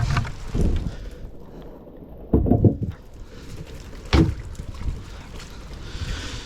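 A few dull thuds and knocks over a low rumbling background: a cluster about two and a half seconds in and a sharper one about four seconds in.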